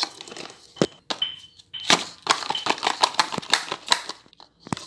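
Crinkly plastic wrapping handled and crumpled over a plastic bowl, a dense run of sharp clicks and crackles.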